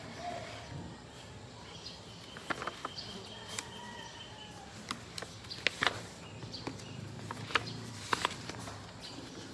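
Sheets of printed paper being lifted, flipped and shuffled on a desk, giving a string of short, sharp crackles and taps, about eight in all, over a faint steady background with faint chirps.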